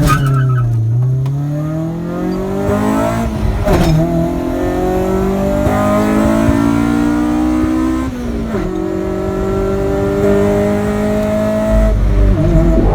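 Honda EK9 Civic Type R's B16B four-cylinder engine accelerating hard through the gears: it climbs steadily in pitch, drops sharply at a gear change a little under four seconds in, climbs again, drops at a second shift about eight seconds in, then climbs once more.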